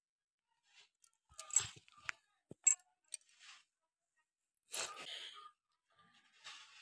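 Two cats eating from a plastic bag: scattered crinkling and rustling of the plastic with a few sharp clicks, in short bursts, the longest a little under a second.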